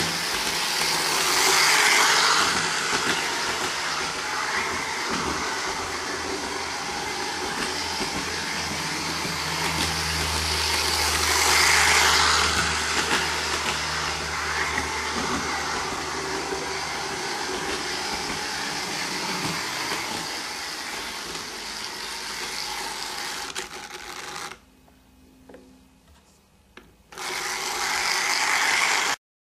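Tri-ang 0-6-0 tank engine model train running round its track: a steady electric-motor whir with the wheels clattering over the rail joints, swelling as it passes close by twice. About three-quarters through the sound drops away for a couple of seconds, then comes back loud and cuts off suddenly near the end.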